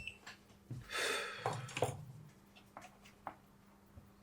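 Small hand-tool sounds from soldering work on a circuit board: a brief hiss about a second in, followed by a few light clicks and taps.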